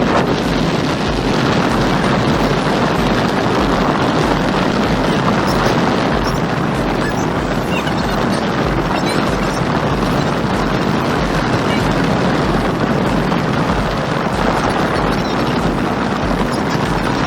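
Car air-conditioning blower on full blast, a steady rush of air, over the engine held at about 3000 rpm with a steady low hum underneath.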